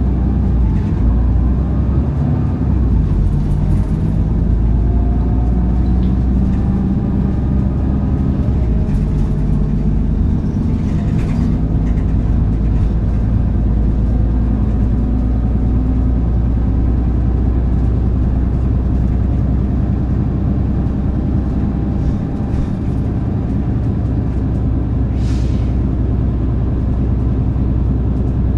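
Hino Blue Ribbon KC-HU2PMCE city bus diesel engine running under way, heard from inside the bus, its note rising in pitch over the first several seconds as it gathers speed. A few short hisses are heard along the way.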